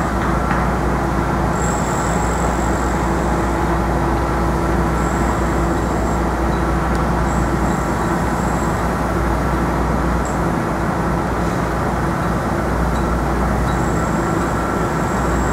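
Steady city street din: traffic rumble with a faint steady hum and a thin high whine that comes and goes.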